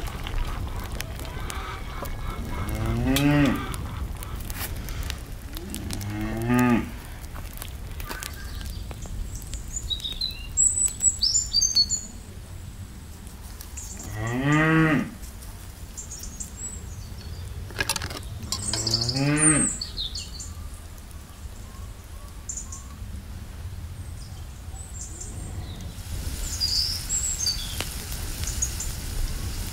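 Cow mooing four times, several seconds apart, each call short and rising then falling in pitch.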